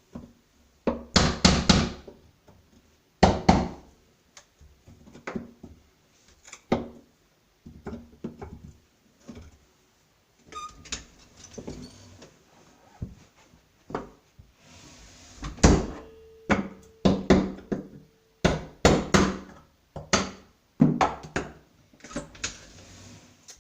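Irregular knocks and thuds on a wooden door as the disc cut by a hole saw is nudged and tapped loose from the bored hole, some strikes coming in quick clattering clusters.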